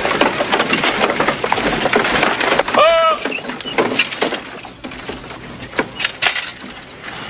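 A team of horses trotting and pulling a wooden covered wagon: hooves clattering with the wagon rattling and creaking, quieter in the second half. About three seconds in, a short cry rises and falls.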